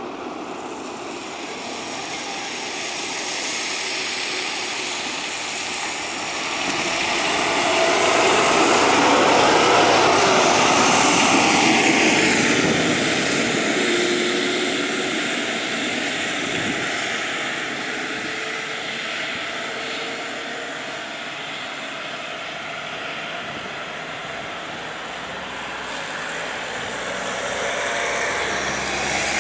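An IVECO Irisbus Citelis Line city bus with a six-cylinder diesel approaches on a wet road, its engine and tyre hiss swelling. It is loudest about a third of the way in, drops in pitch as it goes by, then fades away. The noise rises a little again near the end.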